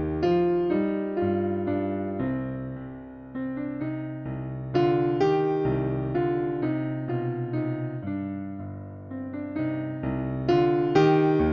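Solo piano music playing a gentle ländler in C minor in triple time, notes struck and dying away, with the phrase repeating about every five seconds.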